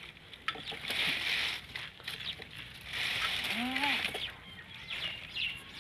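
Long green leaves rustling as a small child handles them. A short rising-and-falling vocal sound comes about three and a half seconds in, and a few short high chirps near the end.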